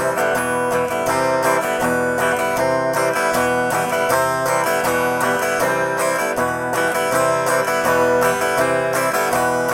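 Guitar strummed quickly and steadily, changing back and forth between E minor and C chords in a down, down, open pattern. On each open stroke the strings ring open while the fretting hand moves to the next chord.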